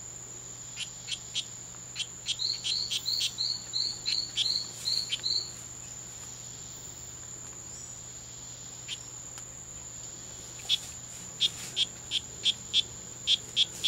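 Strawberry poison dart frog (Oophaga pumilio) males calling: trains of short, evenly spaced high chirps, about three a second, in two bouts, one a few seconds in and another near the end. A steady high-pitched whine runs underneath.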